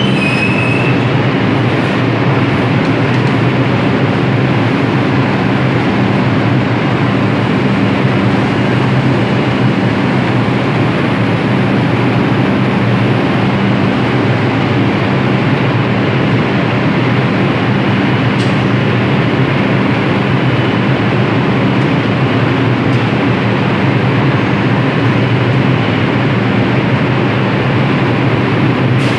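New York City subway train running through the station: a steady, loud rumble of wheels and motors with a steady low hum under it. A short high squeal fades out about a second in.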